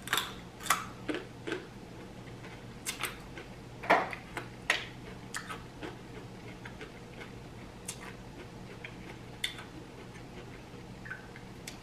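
Eating sounds: irregular crunching bites and chewing of a whole raw carrot, with mussel shells clicking as fingers pick through them in a glass dish. The crunches come thickest in the first few seconds and thin out to scattered clicks.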